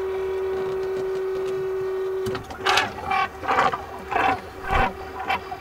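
Small electric oil-change pump running with a steady hum. About two seconds in it turns to uneven sputtering spurts, about two a second, as the hose is released from the sump fitting and the pump pulls air and the last of the oil through the line.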